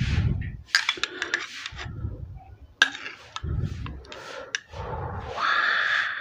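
Metal spoon clinking and scraping against a glass dessert cup as it scoops creamy buko salad, with several sharp clicks of metal on glass.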